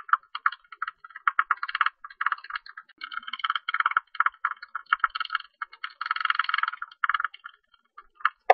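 Ussurian tube-nosed bat calls: rapid trains of short clicks, coming in bursts of up to about a second with short pauses between them.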